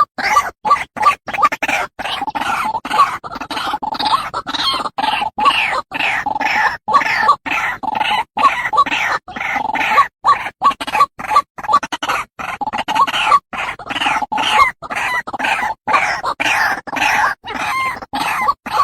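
White-breasted waterhen calling: a rapid, unbroken run of short repeated notes, about three or four a second.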